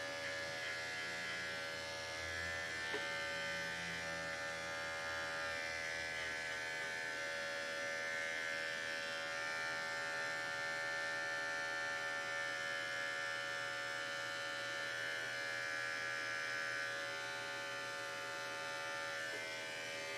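Electric dog-grooming clippers running steadily at one even pitch.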